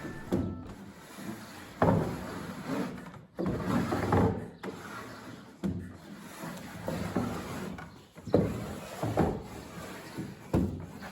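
Wooden parts of a homemade manual square baler rubbing and knocking together as it is worked, in irregular scraping strokes.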